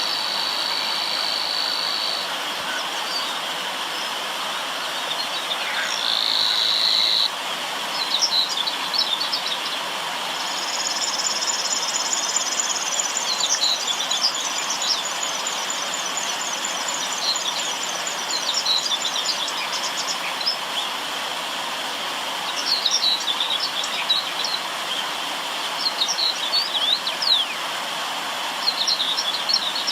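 River water rushing steadily, with birds chirping and calling throughout in short, scattered calls. A long, high buzzing trill runs from about a third of the way in to about two-thirds.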